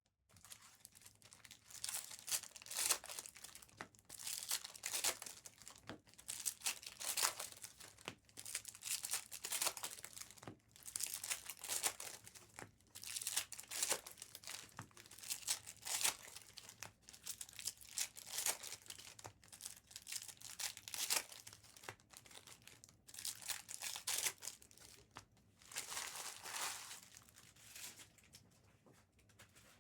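Trading-card packaging crinkling and tearing as it is opened and crumpled by hand, in repeated bursts every second or two.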